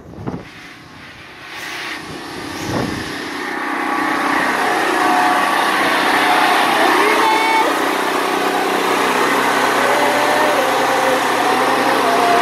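Propane-fed portable generator running steadily and loud, a dense engine drone that grows louder over the first few seconds and then holds.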